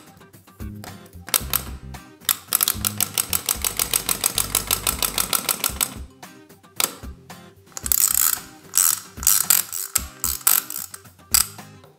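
Wind-up monster toy's clockwork mechanism clicking rapidly and evenly as it is wound and runs, with funk background music underneath.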